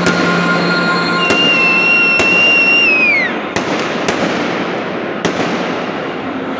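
Stadium fireworks and firecrackers going off: about half a dozen sharp bangs over the dense, steady noise of a packed crowd and burning pyrotechnics. About a second in, a high whistle holds for two seconds, then drops away in pitch.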